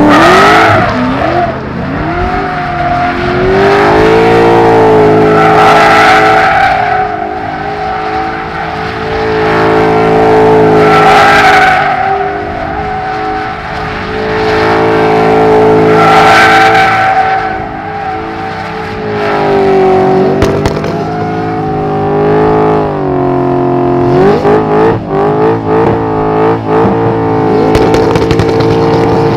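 BMW M62B44 4.4-litre V8 with a straight-piped exhaust, held high in the revs through drifting donuts and a burnout, with tyres screeching. The revs hold steady for several seconds at a time, dip and climb again, and the tyre noise swells about every five seconds. Near the end the engine bounces up and down in quick stabs.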